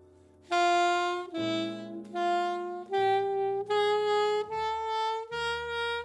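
Alto saxophone playing a slow jazz ballad melody over grand piano chords. After a brief hush, the sax comes in about half a second in with a phrase of held notes, each about half a second to a second long, climbing step by step in pitch.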